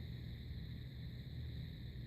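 Quiet gap between loud snores, with only a faint low hum.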